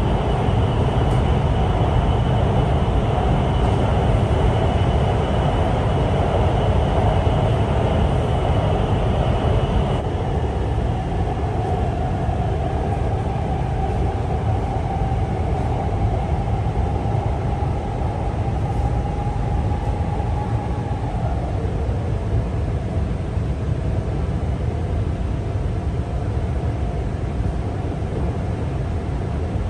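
Guangzhou Metro Line 22 train running, heard from inside the carriage: a steady, loud low rumble, with a thin high whine that stops about ten seconds in and a lower whine that comes in afterwards and fades about two-thirds of the way through.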